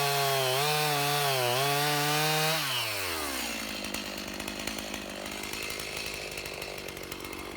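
Stihl Farm Boss two-stroke chainsaw running at high revs cutting firewood, its pitch dipping and recovering a few times under load. About two and a half seconds in the throttle is released and the engine winds down to a steady idle.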